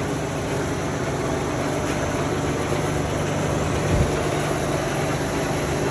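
Rebuilt Bridgeport milling machine running with a steady hum, a little noisy, and one brief knock about four seconds in. The owner puts the noise down to a worn bushing that needs replacing.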